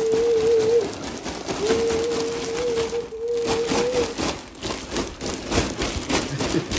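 Plastic packaging rustling and crinkling as the rubber floor mats are handled and pulled out, heard as a run of short crackles in the second half. Over the first half, a steady humming tone of unclear source is held twice, each time for about two seconds.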